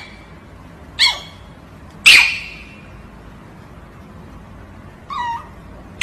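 Small dog yipping during rough play: four short, high yips falling in pitch, about a second in, at two seconds (the loudest, with a trailing fall), and twice more near the end.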